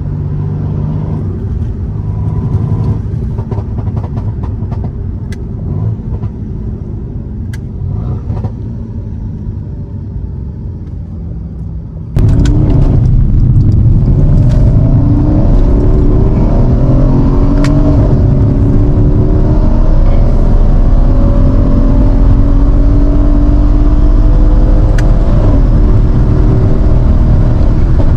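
Mercedes-AMG C63 S twin-turbo V8 heard from inside the cabin, cruising with road noise. About twelve seconds in it becomes suddenly much louder as the engine pulls hard, its pitch climbing in repeated sweeps as the car accelerates.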